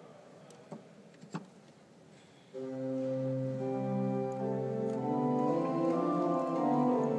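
Church organ, quiet at first apart from a few faint clicks, then a held chord that starts abruptly about two and a half seconds in. More notes enter one after another, building into a thick sustained chord.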